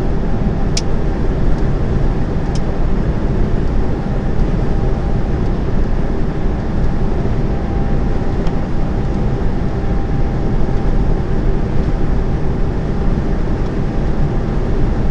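Steady engine and road noise inside the cab of a semi-trailer truck cruising on the motorway, with a faint constant hum and two light clicks in the first few seconds.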